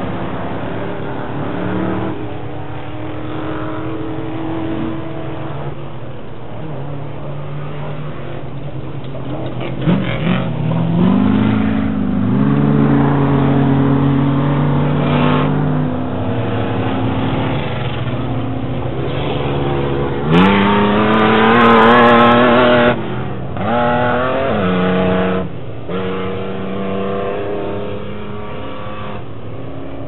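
Several off-road race vehicles' engines running and revving at once around a dirt track, the pitches rising and falling with throttle. About two-thirds of the way through, one engine comes close and is loudest, rising and held high, then cuts off suddenly.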